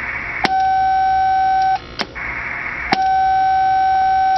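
Ham radio transceiver on the 20 m band. Receiver hiss is cut off by a relay click as the rig goes to transmit, and a steady beep sounds for about a second and a half, ended by another click. The hiss returns, then a second click, beep and click follow. The transmitter is being keyed briefly to read the SWR on the gutter antenna.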